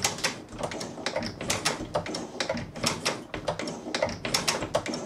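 Drummond Mk2 hand shaper cutting a steel block: a quick, irregular run of sharp clicks and ticks as the tool works across the steel.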